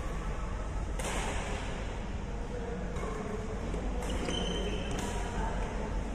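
Badminton rackets striking the shuttlecock in a rally: about four sharp hits a second or so apart, the loudest about a second in, ringing briefly in the hall. A steady low hum runs underneath.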